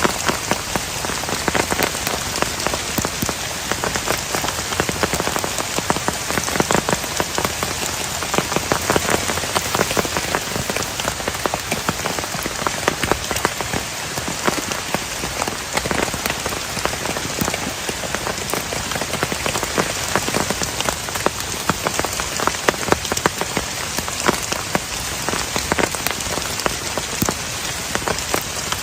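Heavy rain falling steadily, a dense patter of countless drops striking a surface close by.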